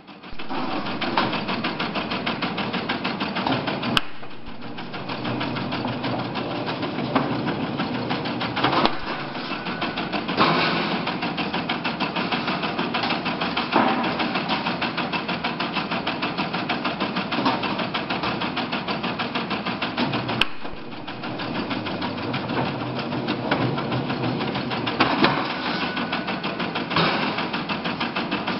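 A can-making machine for square tin cans running with a fast, even mechanical clatter. It eases off briefly twice, about 4 and 20 seconds in.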